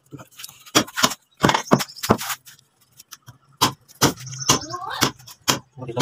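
Irregular sharp knocks and clinks from butchering a hanging carcass with a cleaver and knife, about a dozen over a few seconds. A voice talks briefly near the end.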